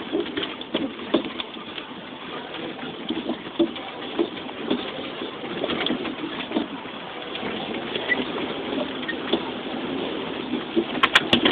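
Off-road vehicle jolting down a rough forest track, heard from inside the cab: a steady rumble of running noise with frequent knocks and rattles as it bounces over the ground, and a quick cluster of sharp clicks near the end.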